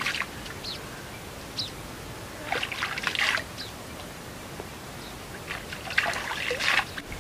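Hands scooping and splashing water in a shallow pool while washing the face, with two bursts of splashing about two and a half and six seconds in, and water trickling in between.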